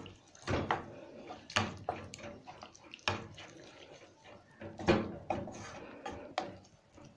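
Spatula stirring and breaking up wet beef mince in a nonstick kadai, with irregular knocks and scrapes of the spatula against the pan, about eight strokes, and the wet sound of the mince being turned.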